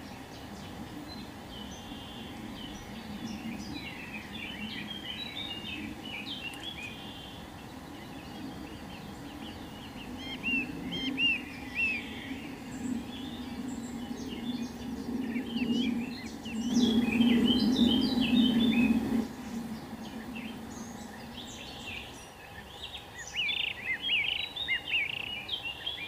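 Many small birds chirping and twittering in short, quick notes, several at once, with bursts of denser calling. Under them runs a low rumbling noise that swells and is loudest for a few seconds past the middle.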